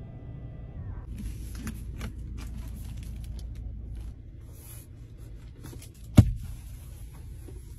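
A small electric motor, likely the car's power-folding door mirror, whines steadily and stops about a second in. Then hands rub and press on perforated leather upholstery of a car seat and headrest, with scraping clicks and one sharp thump about six seconds in.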